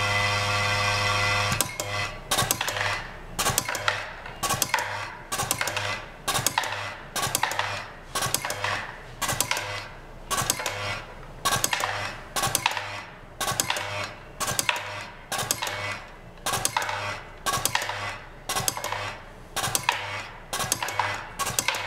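Vibratory bowl feeder on a capsule checkweigher, humming steadily at first, then from about a second and a half in switching on and off in short pulses about once a second, each pulse with a brief hum and a clatter of soft-gel capsules against the steel bowl as they are fed toward the weighing station.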